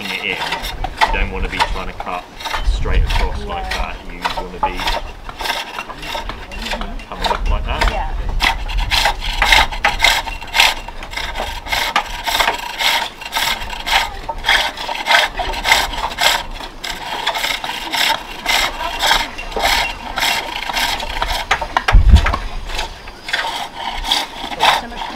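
Hook tool cutting a green-wood bowl on a pole lathe: a continuous, rhythmic scraping of tool on wood as the work spins back and forth under the cord. A brief low thump comes about three seconds in, and a louder one near the end.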